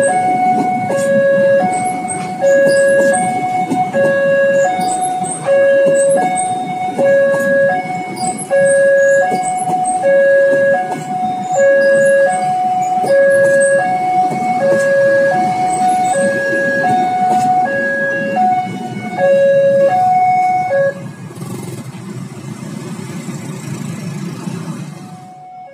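Level-crossing warning alarm sounding an endless alternating low–high two-tone over the rumble of a passenger train's wheels rolling past. The alarm stops about 21 seconds in and a quieter low rumble of traffic follows.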